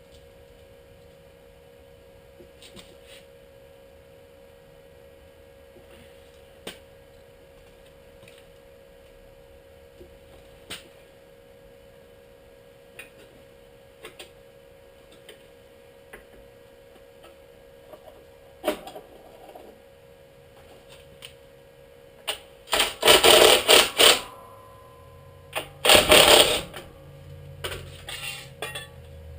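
Sheet-metal shop work: scattered light clicks and taps of metal being handled over a steady hum. Near the end come two loud rattling bursts of metal, the first about a second and a half long, the second shorter.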